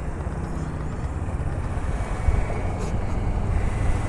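Motorcycle running along a city road, its engine drone mixed with wind rumbling on the microphone.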